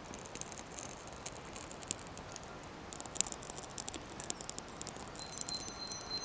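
A thin strip of birch bark burning in a small open flame, giving faint, scattered crackles and pops that come thickest in the second half.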